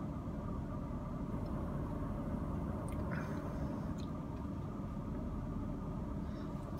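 Steady low hum inside a parked car with its engine running, with a few faint ticks and a brief soft sound about three seconds in.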